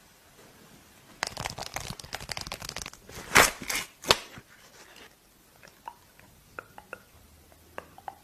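Foil sheet-mask sachet crinkling in the hands and being torn open, with the loudest rip about three seconds in. A few faint sticky clicks follow as the wet gel mask is pulled out.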